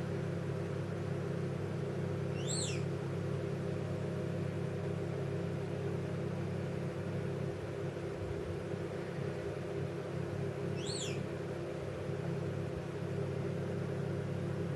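Steady low hum in a quiet room, with a pet parrot giving two brief high chirps that each rise and fall quickly, a few seconds apart.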